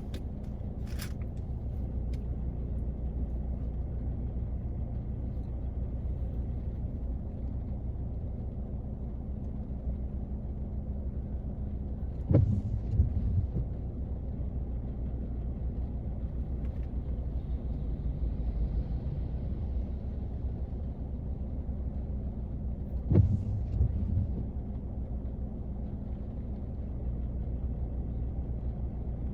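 Rain on a car, heard from inside the cabin as a steady low, muffled rumble. Twice, about eleven seconds apart, a sharp crack is followed by a brief low rumble.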